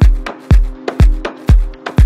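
Background electronic dance music: a deep kick drum on an even beat about twice a second under a steady held chord.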